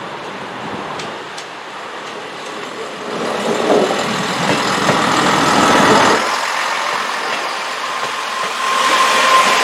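A train passing, its rumble building over the first few seconds and peaking midway. Near the end a steady high whine sets in.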